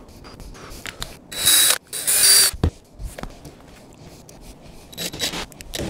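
Cordless drill-driver running in two short bursts, about half a second each, with a high motor whine, as it drives into the wood of the box to fit latch hardware; a sharp click follows.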